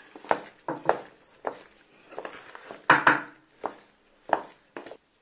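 Wooden stirring paddle (kana) mashing boiled tapioca with masala paste in a metal pot, knocking against the pot about ten times at an uneven pace of roughly two a second, loudest about three seconds in.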